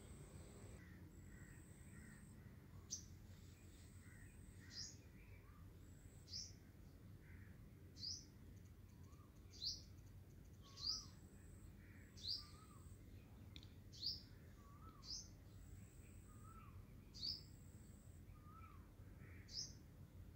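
Faint bird chirping: about a dozen short, high, falling chirps, one every second or two, over low steady background noise.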